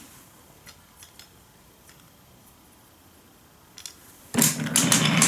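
Wooden toy train pushed by hand along wooden track: a few faint clicks, then about four seconds in a loud, rapid clattering rumble of wooden wheels rolling over the track.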